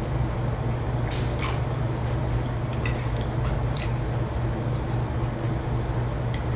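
Chewing crunchy tortilla chips: a few scattered crunches and wet mouth sounds, the sharpest about one and a half seconds in, over a steady low hum.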